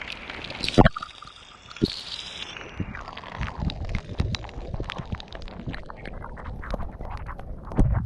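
Rainwater splashing and dripping close to the camera, with many drops ticking on it. There is a sharp knock about a second in and another about two seconds in.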